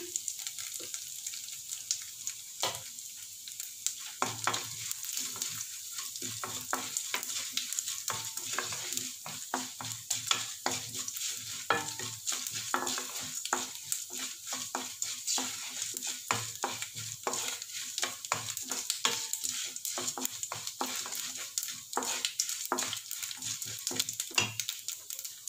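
Tempering spices and dal sizzling in hot sesame oil in a non-stick pan as a wooden spatula stirs them, with a steady hiss and many light clicks and taps of the spatula against the pan.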